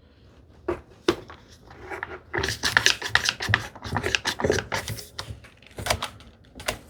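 A woodworking clamp being put on and tightened over a glued joint: a quick, irregular run of clicks and scrapes, busiest in the middle.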